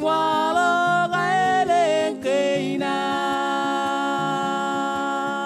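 Man singing a song to his own strummed ukulele, steady strums under the voice. About three seconds in he holds one long note to the end of the line.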